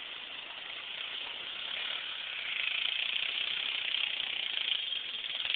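Old Ford F-150 pickup's engine running in the mud, heard as a steady, noisy rush through a low-quality microphone that grows louder about two and a half seconds in.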